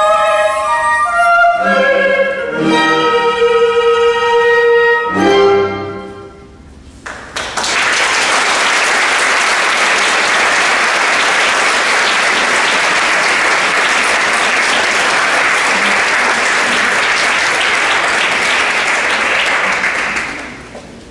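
Chamber orchestra with voices ends a piece on a held final chord about six seconds in. After a brief pause the audience applauds steadily, and the applause dies away near the end.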